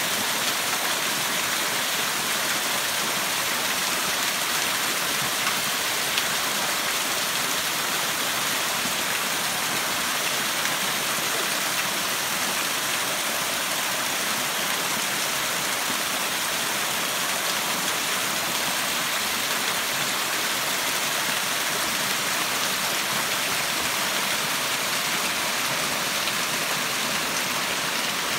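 Small waterfall splashing over rocks into a shallow rocky stream, a steady rushing hiss of falling water.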